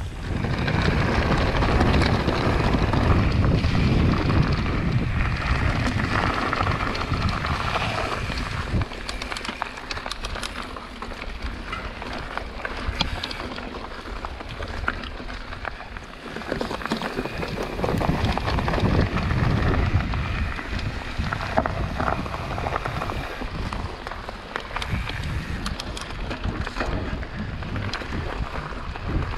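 Wind buffeting the microphone of a camera on a mountain bike riding downhill, over the rumble of tyres on a dirt trail, with rattles and clicks from the bike. The noise swells and falls as the pace changes.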